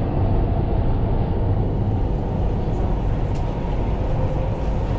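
Dubai Metro train running between stations, a steady rumble heard from inside the carriage.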